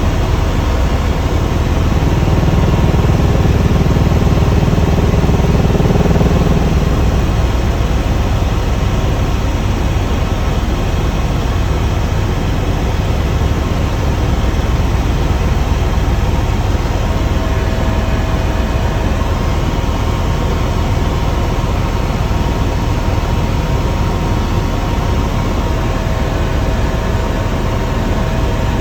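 Helicopter in flight: loud, steady rotor and engine noise with a fast low beat from the rotor blades.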